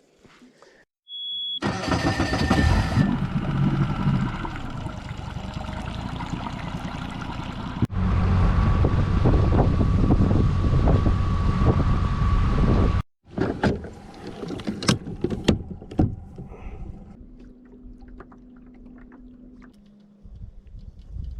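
Boat motor running loudly, starting abruptly about a second and a half in, just after a short high beep. It cuts off sharply about 13 seconds in, leaving quieter clicks and knocks.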